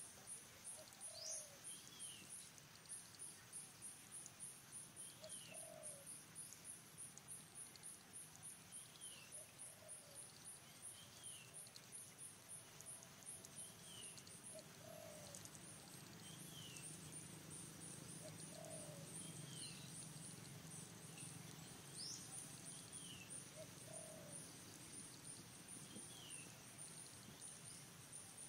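Faint forest ambience: an insect's fast, pulsing high trill runs throughout, while a bird repeats a short falling chirp every second or two and lower-pitched calls come every few seconds.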